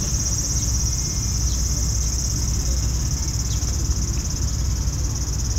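A chorus of cicadas singing in a steady, high-pitched drone, over a low rumble, with a few faint short chirps.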